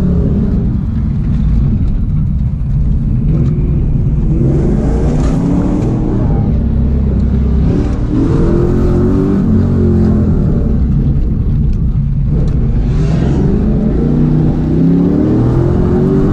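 1998 Chevrolet Camaro SS's 5.7-litre LS1 V8 heard from inside the cabin, driven hard through an autocross course. The revs climb and drop back several times as the driver accelerates out of corners and lifts for the next.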